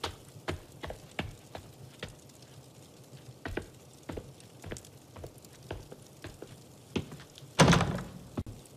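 Light, irregular footsteps clicking on a hard palace floor, about one or two a second, with a brief louder rush of noise, like a gown swishing, about seven and a half seconds in.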